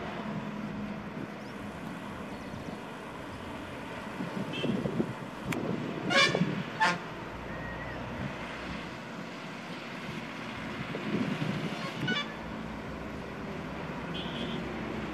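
A vehicle horn tooting twice in quick succession, a little over half a second apart, about six seconds in, and once more, fainter, near the end, over a steady low hum.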